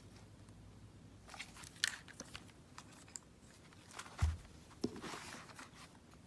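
Handling noise from camera gear being picked up and turned over: scattered light clicks and rustles, with a soft low thump about four seconds in.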